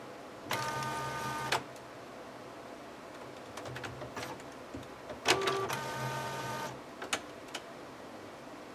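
Epson inkjet printer's mechanism running: two short whirring motor runs of about a second each, some five seconds apart, with sharp clicks around them.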